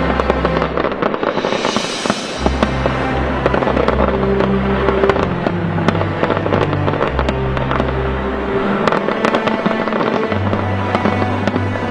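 Fireworks bursting, with many sharp bangs and crackles and a hissing swell about two seconds in. Music with held bass notes plays underneath.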